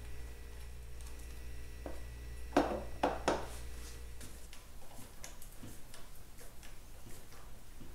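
Hand work with tools on a motorcycle clutch: a few sharp metallic knocks between about two and three and a half seconds in, then a run of light, irregular ticks and clicks.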